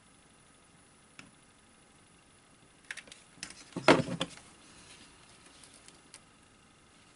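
Workbench handling noises: a light click about a second in, then a short cluster of clicks and knocks about three to four seconds in, the loudest a single sharp knock, as a hot glue gun is set aside. Faint rubbing follows as a glued wooden disc is pressed on and fitted.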